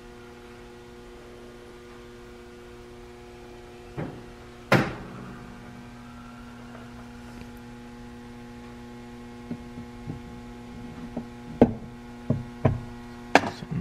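Aluminium crankcase halves knocking together as the upper case half is worked down over its locating dowels and crank bearings: a knock about four seconds in, a louder one just before five seconds, then a run of sharper knocks over the last few seconds. A steady electrical hum runs underneath.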